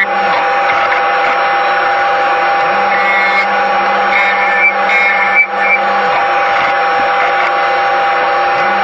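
Wood lathe turning a beech vase while a hook tool cuts shavings from its inside, heard sped up eightfold as a steady high-pitched machine whine over cutting noise, with a few brief jolts about halfway through.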